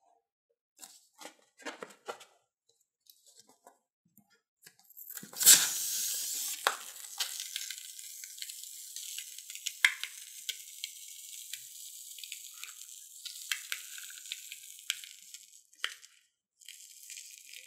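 White foam squeezed out through the neck of a latex balloon. It starts with a sudden spurt about five seconds in, then a sustained hissing crackle with little pops that stops shortly before the end, followed by one short burst. Before the spurt there are a few soft rubbery handling sounds.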